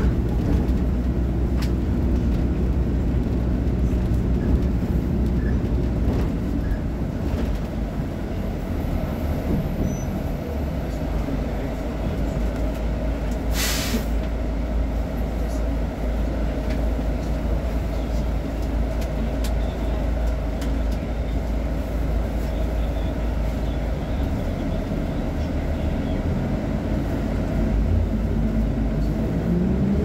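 VolksBus 17.230 OD city bus's diesel engine idling steadily, heard from behind the bus. About halfway through there is one short hiss of compressed air from the bus's air system, and near the end the engine revs with a rising pitch.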